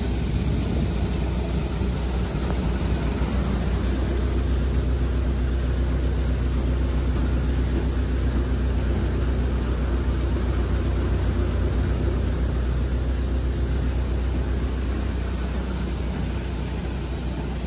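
Tractor-driven Vishwakarma multicrop thresher running steadily while threshing sesame, together with the John Deere tractor driving it: a steady low drone under a broad rushing noise, easing slightly near the end.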